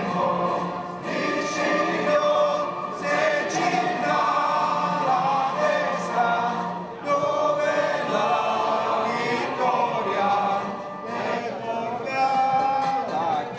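Music with a choir singing, the voices holding long, swelling notes.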